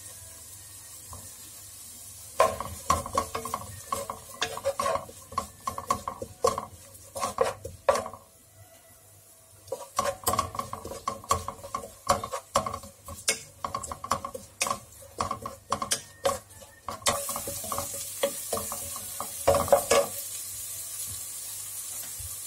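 Wooden spatula stirring chopped green onions in melted butter, knocking and scraping quickly against a nonstick pot as they sauté over medium heat. It pauses briefly near the middle, and a steady sizzle rises under the stirring in the last few seconds.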